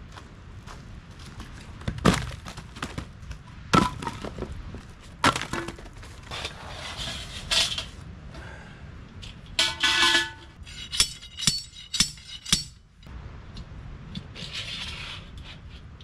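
Knocks, clinks and rustling of camping gear being handled and set down. Sharp knocks come about two and four seconds in, a ringing metallic clink near the middle, then a quick run of clicks.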